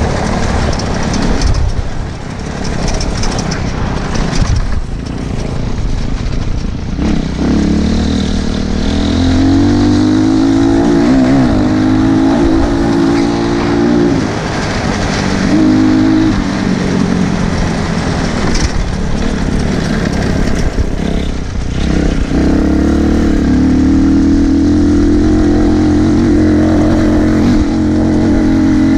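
200 cc dirt bike engine revving under riding. The first several seconds are rough and noisy; after that its note comes through clearly, climbing and then holding steady, easing briefly about halfway and holding steady again near the end.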